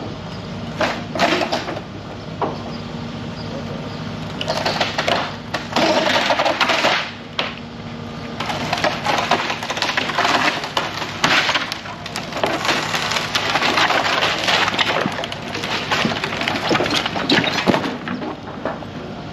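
Wooden barn structure cracking, splintering and crunching as an excavator pulls it down: a couple of sharp cracks about a second in, then long stretches of breaking wood from about four seconds in. The excavator's engine runs steadily underneath.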